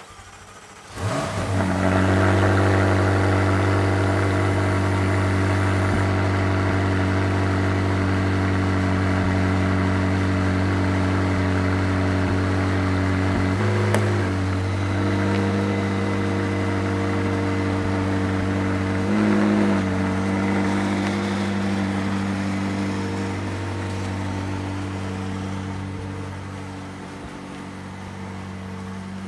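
A vehicle engine comes in sharply about a second in and runs steadily at one speed, its pitch wavering briefly twice, and grows somewhat quieter near the end.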